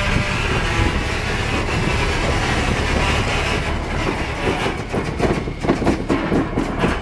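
GE 110-ton diesel switcher running steadily as it moves a 1927 Baltimore & Ohio baggage car, whose six-wheel trucks roll along the rails. In the second half a run of sharp clicks and knocks comes from the wheels and couplings.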